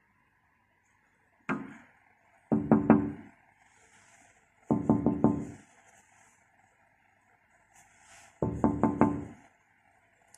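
Knuckles rapping on a glass window pane: one knock, then three quick bursts of four or five knocks each, with a low ring.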